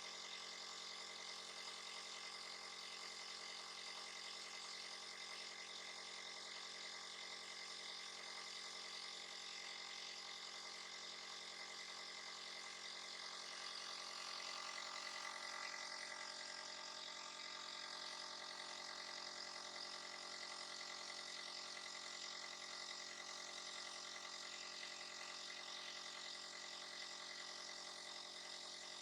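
A small motor running steadily: a constant hum of several fixed tones with a hiss over it, briefly a little louder about halfway through.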